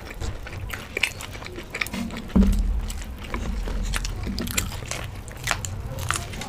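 Two people biting and chewing fried samosas and raw green chillies, with many short crisp crunches, and a dull low thump about two and a half seconds in.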